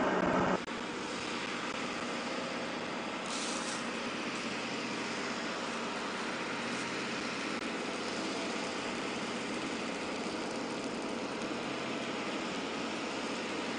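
Steady engine noise: a louder stretch cuts off about half a second in and gives way to a quieter, even running hum, with a couple of brief hisses.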